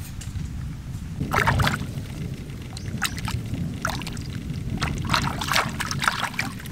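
Water splashing and sloshing in several irregular bursts as hands wash a duck egg in shallow water, over a steady low background rumble.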